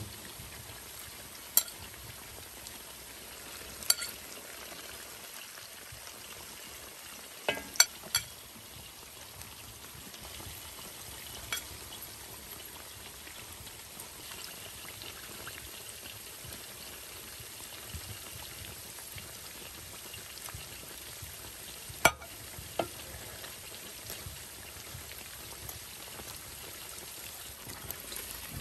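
Sheep brisket sizzling as it cooks: a steady frying hiss broken by a few sharp clicks and pops, two or three close together about eight seconds in.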